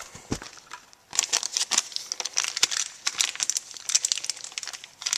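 Packaging crinkling and crackling in quick, irregular bursts as it is handled by hand.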